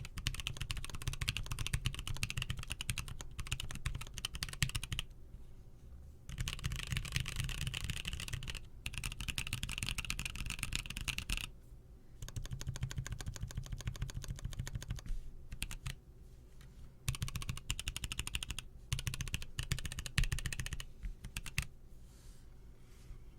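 Fast typing on a custom mechanical keyboard: dense runs of keystroke clicks and clacks in several bursts with short pauses between them, trailing off near the end.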